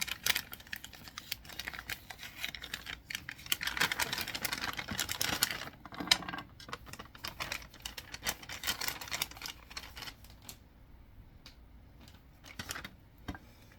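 Packaging being opened by hand: quick clicks and crackling rustle of paper and plastic wrapping, busiest in the first half and dying down over the last few seconds.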